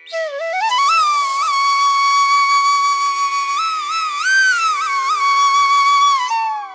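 Background music: a single melody line that climbs in steps, holds long notes with short slides between them, and falls away near the end, over a quiet steady drone.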